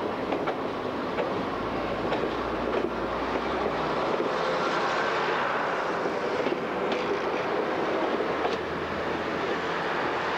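British Rail Class 101 diesel multiple unit pulling out and passing close by, its underfloor diesel engines running under power, with its wheels clicking over the rail joints.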